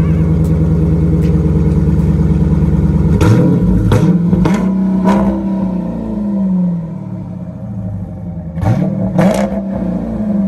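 A 2021 Dodge Durango R/T's 5.7-litre Hemi V8 running through a Tunnel Ram performance exhaust. It runs steadily, then about three seconds in it is revved in several quick throttle blips before settling back to idle. Near the end it is blipped again a few times.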